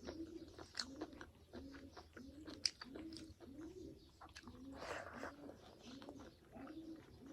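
Close-up eating sounds: wet chewing with sharp lip smacks and mouth clicks. Under them runs a low, soft tone that rises and falls about twice a second, in time with the chewing.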